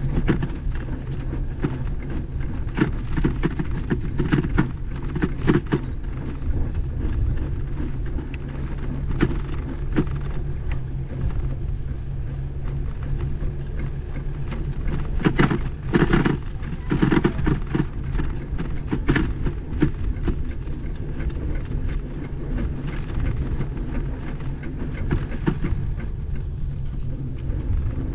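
A bicycle rolling over a brick-paver path, with a steady low rumble and many irregular clicks and rattles from the bike. The rattling is heaviest around the middle.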